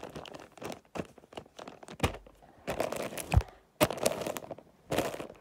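Wrapping paper crinkling and rustling, with irregular sharp crackles and snaps of sellotape being handled and torn; the loudest snaps come about two seconds in, around three and a half to four seconds, and near the end.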